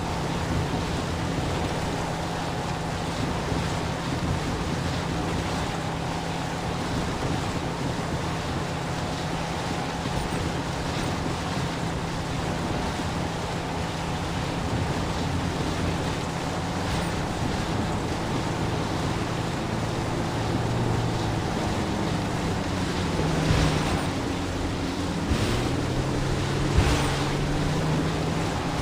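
Motorboat engine running steadily under way, with water rushing past the hull and wind buffeting the microphone. In the last several seconds the engine's pitch shifts up and down a few times.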